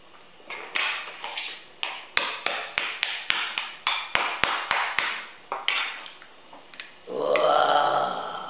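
A metal spoon tapping hard on a cooked crab's shell to crack it: a run of sharp knocks, about three a second, lasting a few seconds. Near the end comes a short, louder vocal sound from the eater.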